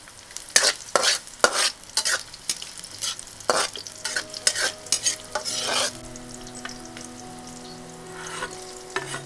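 Garlic and onion frying in hot oil in a pan, sizzling, with a spatula scraping and stirring them in quick repeated strokes for the first six seconds or so. A steady low hum comes in during the second half.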